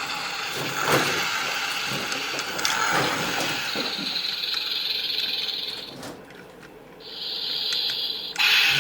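Teamsterz Cobra toy car's mechanism whirring and clicking, dropping away briefly about six seconds in and starting up again, louder near the end.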